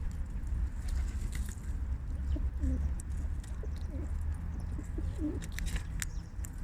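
Baby squirrel sneezing: a few short, sharp sneezes, bunched near the end. Short, soft low calls come in the middle, over a steady low hum.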